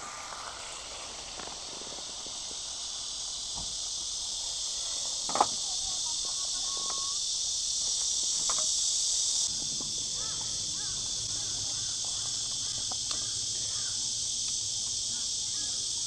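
Beef burger patties sizzling in a pan, a steady high hiss, with one sharp knock about five seconds in.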